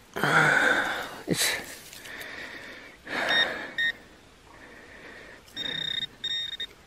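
Handheld metal-detecting pinpointer probe sounding its high, steady alert tone as it is pushed into the soil of the dig hole. The tone comes briefly about three seconds in, then in a few short bursts near the end, as the probe closes in on a buried target. Heavy, shaky breathing is heard near the start.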